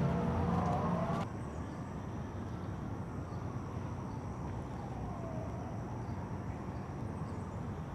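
A steady horn tone, most likely a train horn, breaks off abruptly about a second in. Steady outdoor background noise follows.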